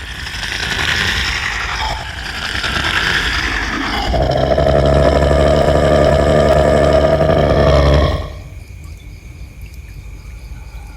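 Monster roar sound effect: two rasping, growling swells over the first four seconds, then a long, loud roar with a deep rumble beneath it that cuts off suddenly about eight seconds in.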